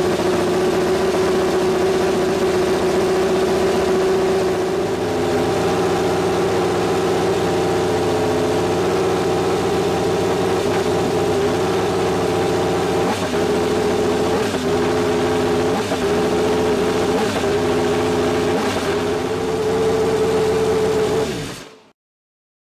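Ferrari 2020 Formula 1 engine, a 1.6-litre turbocharged hybrid V6, running steadily at a high idle. In the second half its note wavers briefly about every second and a half, and the sound cuts off suddenly near the end.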